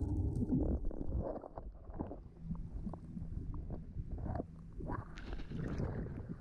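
Muffled underwater noise: irregular low rumbles and knocks, with a faint steady hum coming in about two and a half seconds in.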